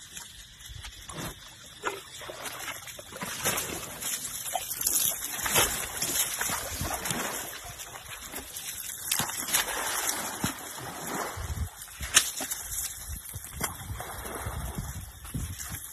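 Pool water splashing and sloshing as an elephant slaps and scoops it with its trunk, in a run of irregular splashes that picks up a few seconds in.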